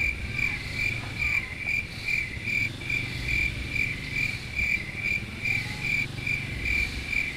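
Cricket chirping in a steady, even rhythm, about two to three high chirps a second, over a low steady rumble.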